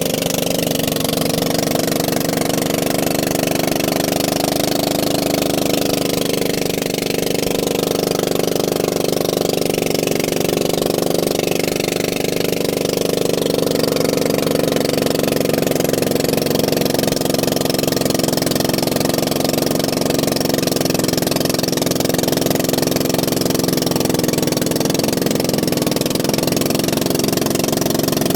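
An engine running steadily with a constant, even hum, its pitch drifting only slightly.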